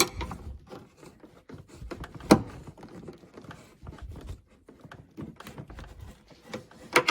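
Small screwdriver prying at plastic wiring connectors behind a taillight, with irregular clicks, knocks and scraping as the connector latch is worked loose; a sharp click about two seconds in and another near the end.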